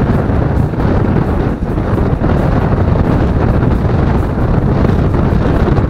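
Strong wind buffeting the microphone: a loud, steady low rumble with no breaks.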